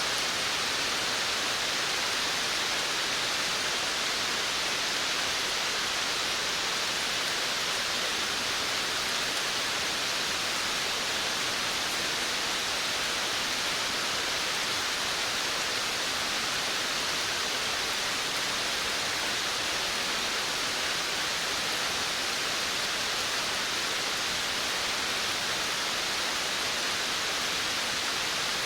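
Steady rain on a veranda, an even hiss with no single drops standing out and no change in strength.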